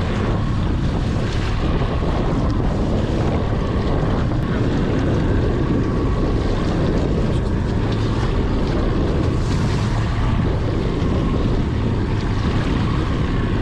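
Steady wind buffeting the microphone over choppy lake waves washing against a fishing boat's hull.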